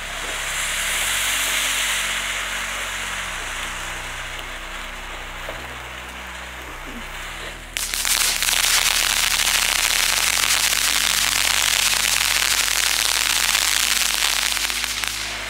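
Consumer firework burning with a steady hiss, then about eight seconds in it turns abruptly louder into a dense, fast crackling.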